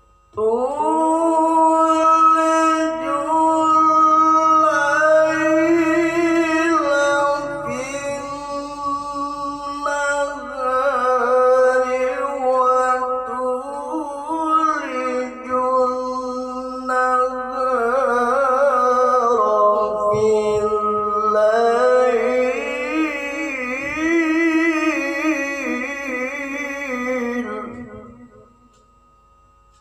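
A male qari reciting the Quran in the melodic tilawah style: one long ornamented phrase held for nearly half a minute without a break, with wavering turns in its last part, ending a little before the close.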